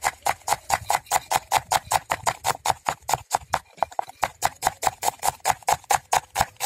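Kitchen knife slicing a red onion on a wooden chopping board: quick, even knocks of the blade striking the wood, about six a second.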